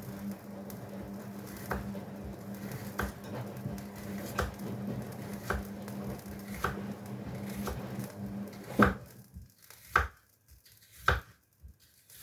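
Knife cutting on a cutting board, about one stroke a second, over a steady appliance hum that stops about nine seconds in; the strokes go on after it, sharper and louder.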